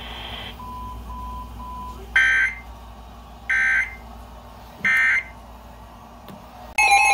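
Emergency Alert System SAME header: three short screeching data bursts about a second and a half apart, after three short beeps. Near the end the loud, steady two-tone attention signal begins, marking the start of a severe thunderstorm warning.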